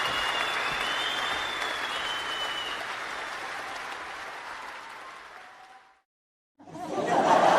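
Crowd applause and cheering with a few high whistles, fading out to silence about six seconds in. After a brief gap, a new burst of crowd sound begins near the end, the start of laughter.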